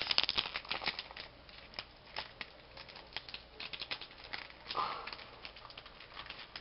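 Foil wrapper of a Pokémon trading-card booster pack crinkling in quick, irregular crackles as it is opened by hand, densest in the first second.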